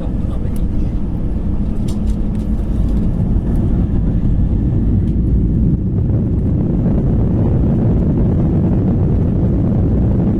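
Airbus A321 cabin noise heard from inside the cabin: a steady, loud low rumble from the CFM56 jet engines and airframe, with a few light rattles in the first few seconds.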